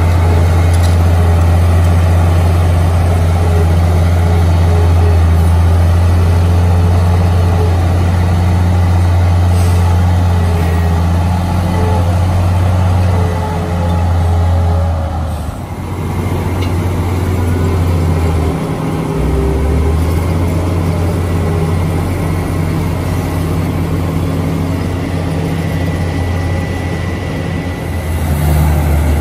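Komatsu D53A crawler bulldozer's diesel engine running steadily with a deep drone, which drops away briefly twice about halfway through.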